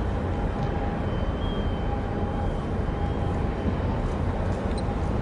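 Steady low rumble of harbour background noise with wind buffeting the microphone, and a faint thin whine held underneath.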